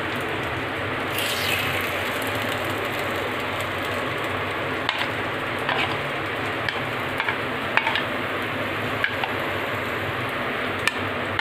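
Batter-coated potato balls sizzling steadily in a greased appam maker over a low gas flame, with a few short sharp clicks scattered through the second half.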